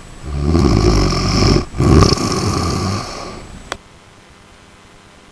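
Chihuahua snoring in its sleep: two long, rumbling snoring breaths, the second fading out about three seconds in. A single small click follows.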